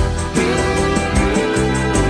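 Background pop music with a steady beat and sustained instrumental notes, no vocals.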